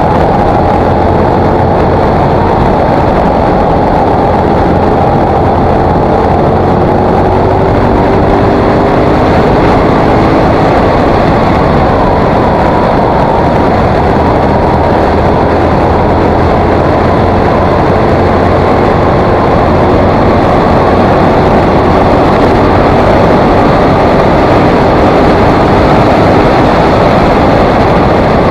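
KTM 950 SMR's V-twin engine running at steady road speed, its pitch drifting only slightly, under a loud, even rush of wind and road noise on the bike-mounted camera's microphone.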